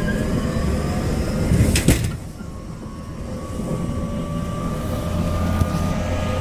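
Running noise inside a JR Kyushu 813 series electric train's motor car: a steady rumble of wheels on rail, with a pair of sharp clacks a little under two seconds in. The noise then drops, and a faint motor whine rises gently in pitch.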